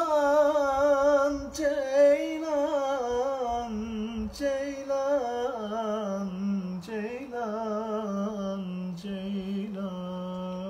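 A man singing solo without accompaniment in Turkish folk style, drawing out long vowels with wavering ornaments. The melody runs in a few long phrases that step gradually lower.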